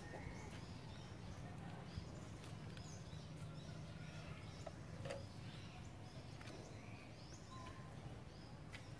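Outdoor ambience: scattered short bird chirps over a low steady hum, with a few faint clicks.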